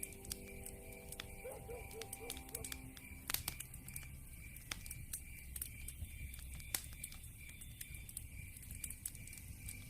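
Wood fire crackling in a fireplace: irregular snaps and small pops, with sharper pops about three seconds in and again near seven seconds.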